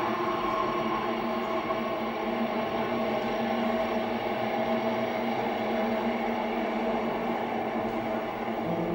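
A dense drone of many steady held tones over a rushing haze, played by a sound installation through horn loudspeakers. It shifts to clearer held notes near the end.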